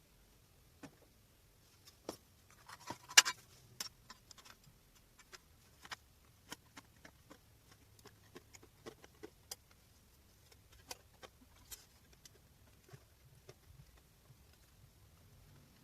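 Irregular light clicks and taps of hand-tool work, with one sharper click about three seconds in.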